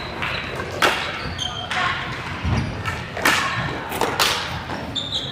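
Field hockey sticks striking the ball: sharp cracks about a second in and twice more around three and four seconds in, with players calling out between them.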